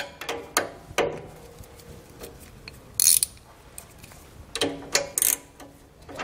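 Socket ratchet clicking in several short bursts as it backs a nut off the lower bolt of a worn front sway bar end link.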